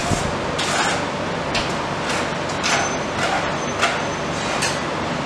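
Metal spatula scraping and chopping ice cream mix on the frozen steel plate of a tawa (rolled) ice cream machine, in a series of short strokes about one a second, over a steady hiss. The mix is setting hard on the cold plate.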